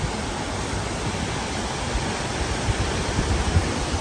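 Waterfall's rushing water, a loud steady roar, with wind buffeting the microphone in the second half.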